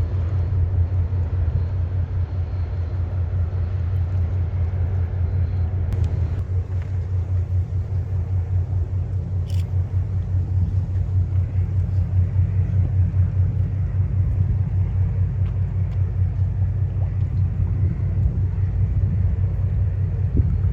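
Lake freighter's engines running with a steady low rumble and a regular throb.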